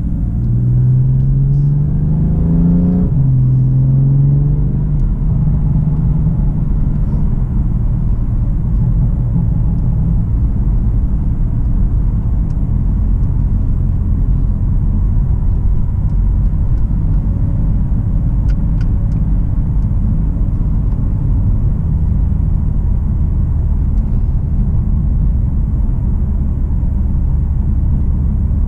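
BMW F80 M3's twin-turbo straight-six accelerating, its note rising, dropping sharply at an upshift about three seconds in, and rising again briefly. It then settles into a steady low drone at cruise, with a low rumble underneath.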